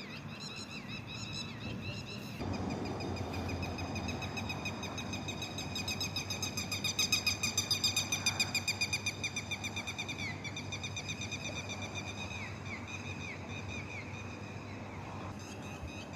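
Night birds calling in a rapid, continuous series of high-pitched, pulsing notes, many a second. The calls swell to their loudest about halfway through, then ease off into some downward-slurred notes. Calls like these are what people in the Philippines fear as the sound of an aswang.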